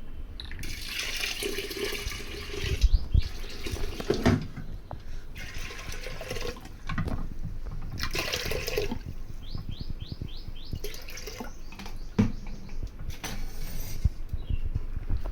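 Tap water running into a kitchen vessel in several spells as dal (lentils) is rinsed, with a few knocks of the pot in between.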